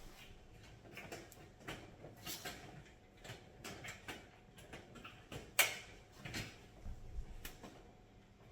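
Irregular clicks, taps and knocks of sheet-metal raised-bed panels and their screws and fittings being handled and joined, with one sharper metal knock about five and a half seconds in.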